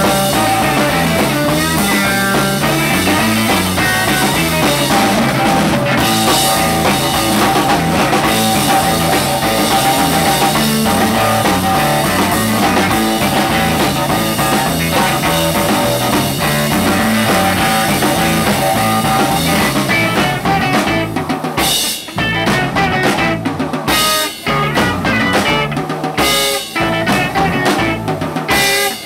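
Live instrumental rock: electric guitar playing lead over a drum kit. From about two-thirds of the way through, the band plays stop-time breaks, sharp hits with short gaps between them.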